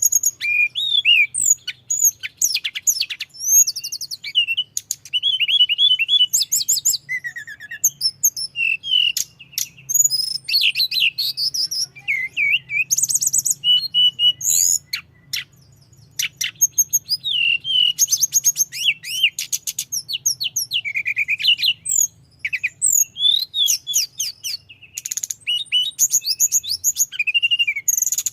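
A tledekan gunung songbird singing continuously in a long rolling song. Its fast, varied phrases run through chirps, sweeping whistles and rapid trills, broken only by brief pauses.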